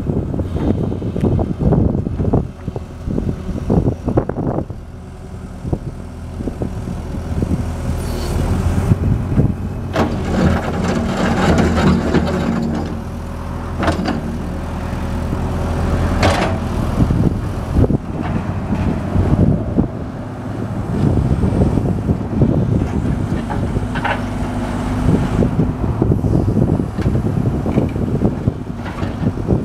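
Caterpillar 312B hydraulic excavator's diesel engine running while the boom and arm are worked out and back in. The engine note strengthens under hydraulic load for a few seconds at a time, with uneven wind buffeting on the microphone.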